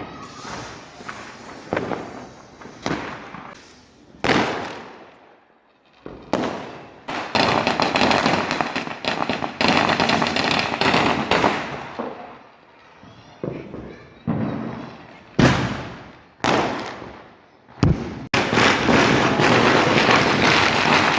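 Firecrackers going off: a series of sharp bangs, each fading away, with two long stretches of dense rapid crackling, one in the middle and one near the end.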